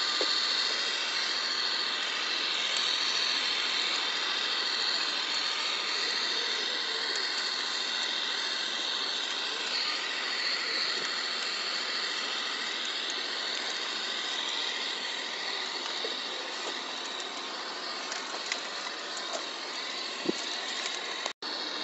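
A 1:14.5-scale RC Mercedes-Benz SK 3544 8x8 dump truck running as it drives, a steady high-pitched whine and hiss, with a few short clicks near the end.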